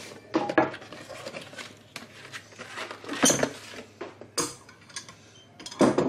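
Several sharp clinks and knocks of a Staub enamelled cast-iron teapot, its lid and its metal bail handle being handled and set down, with some rustling in between.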